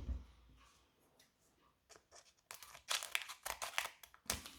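Pokémon booster pack wrapper being torn open and crinkled: a quick run of sharp rips and crackles starting about halfway through.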